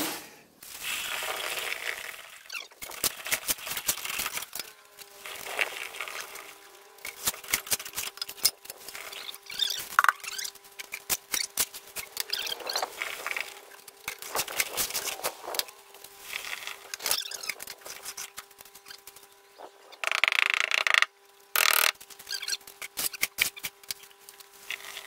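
Wet concrete being worked into a wooden column form by hand: repeated scraping and knocking of tools against the bucket and formwork, with a louder scraping rush about twenty seconds in. A faint steady whine sits under it from about five seconds in.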